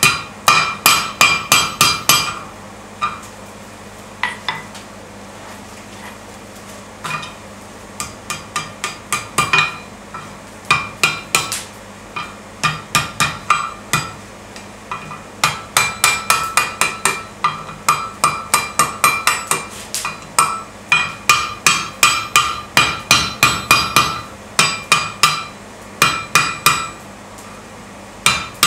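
Hand hammer striking red-hot steel on the anvil horn to bend a scroll, each blow ringing off the anvil. The blows come in quick runs of about four a second, with a pause of a few seconds near the start.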